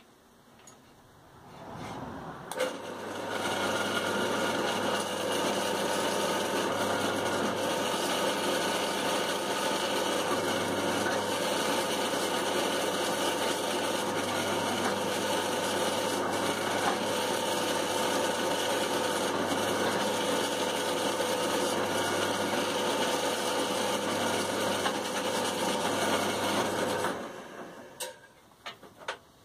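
An electric workshop power tool starts about two seconds in, runs steadily with a low hum, and stops near the end, followed by a few light clicks.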